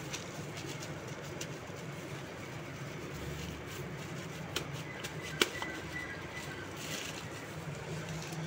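Light crackling and clicking of a plastic sheet as a shami kabab patty is pressed into shape by hand, with a sharp click about five and a half seconds in, over a steady low hum.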